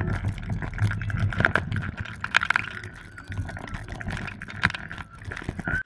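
Steel roller coaster in motion, heard from a rider's camera: wind rushing over the microphone and the train rattling and clattering on the track, with a steady high whine underneath. It cuts off suddenly near the end.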